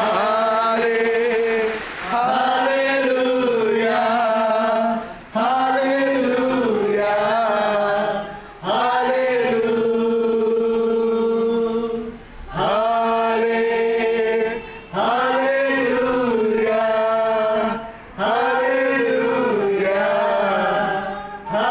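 Congregational worship singing without instruments, a man leading and the group joining in, in phrases of about two to three seconds with short breaks between them.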